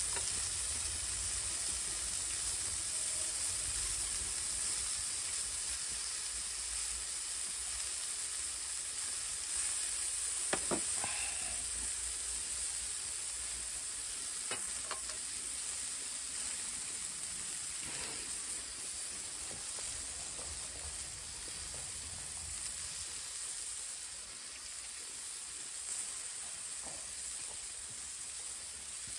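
Steak sizzling on a hot grill plate, a steady frying hiss. A few light clicks of utensils come around the middle.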